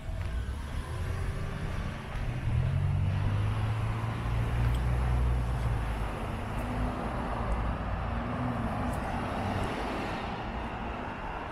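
Cars passing on a city street: engine hum and tyre noise swell and fade. The loudest pass, with a low engine hum, comes a few seconds in.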